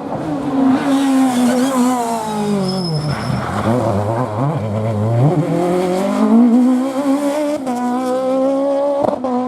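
Peugeot 306 Maxi rally car's naturally aspirated two-litre four-cylinder engine: its pitch falls over the first three seconds as the car slows, then it revs up hard under acceleration, with a quick upshift about eight seconds in.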